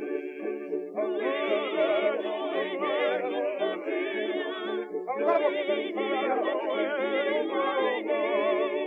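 Background music with several wavering, vibrato-laden melodic lines over a steadier lower accompaniment, pausing briefly about a second in and again about five seconds in.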